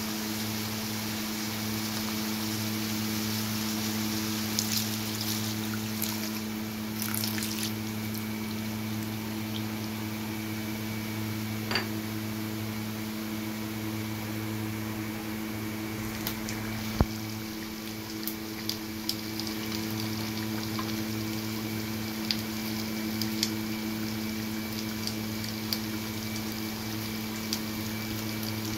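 Octopus adobo cooking in a wok: crackles and pops as coconut milk is poured in, then bubbling as the sauce simmers, over a steady low hum.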